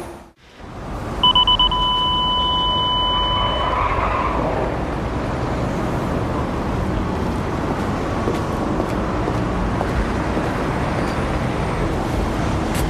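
Steady rumble and road noise of a truck driving on the road. Near the start there is a steady high tone lasting about two and a half seconds.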